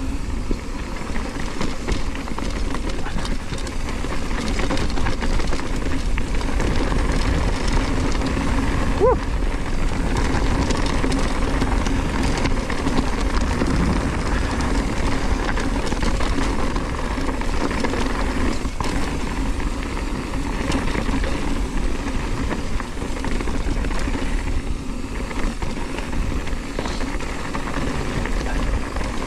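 On-One Scandal hardtail mountain bike riding down loose dirt singletrack: a continuous rumble and rattle of knobby tyres on gravel and the bike shaking over the rough ground, with wind rushing over the camera's foam cover. A short squeak about nine seconds in.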